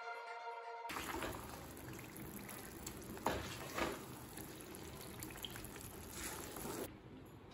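Ghee-rich bread halwa sizzling softly in a kadai as it is stirred, with a few sharp scrapes of the wooden spatula against the pan. The sizzle cuts off near the end.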